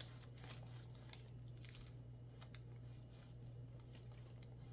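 Near silence: a low steady hum with a few faint, light clicks and scrapes of handling.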